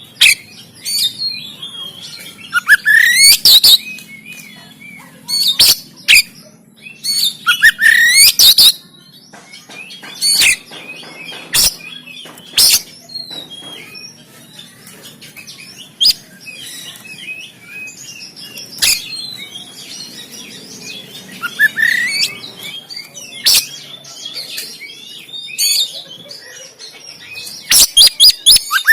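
Oriental magpie-robin singing in bursts: loud upswept whistles repeated every few seconds, with short, sharp harsh notes scattered between them.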